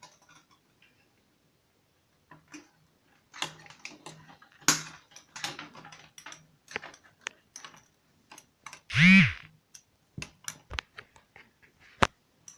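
Clicks, knocks and light rattles of test leads and clips being handled as the connections on a microwave oven's high-voltage diode are swapped to reverse the polarity. About 9 s in comes one brief, loud pitched sound that rises and then falls in pitch.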